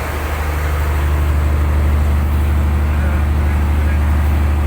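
Fishing boat's engine running steadily, a deep drone that grows slightly louder in the first second or two.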